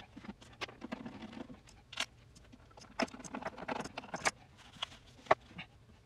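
Screwdriver work on a cassette deck's cabinet screws: irregular metal clicks, taps and short scrapes, the sharpest click about five seconds in.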